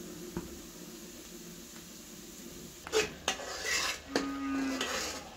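Slotted metal spatula stirring masala frying in a metal karahi, clinking and scraping against the pan, with sizzling. The clinks and sizzle begin about three seconds in; before that only a low steady hum.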